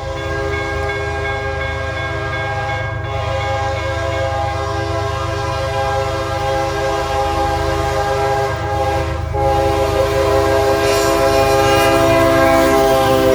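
Diesel freight locomotive's multi-chime air horn holding one long chord at a grade crossing, louder near the end and then cutting off suddenly, over the low rumble of the passing train.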